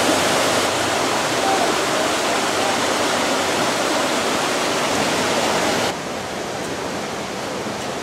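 Steady rush of a small waterfall and stream tumbling over rock, dropping to a quieter rush of flowing water about six seconds in.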